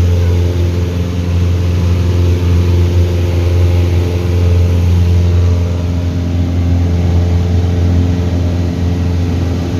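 Light aircraft's piston engine and propeller running steadily at constant power, a deep even hum with steady overtones over a broad rushing hiss.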